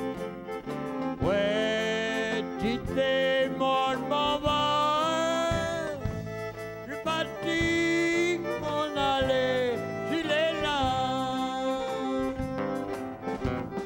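Live Cajun band music: a waltz with fiddle and acoustic guitar, and a man singing in Cajun French at the microphone.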